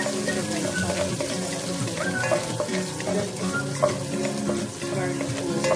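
Chopped onion and garlic sizzling in hot oil in a pot, with a wooden spatula scraping and tapping as it stirs. Background music plays under the frying.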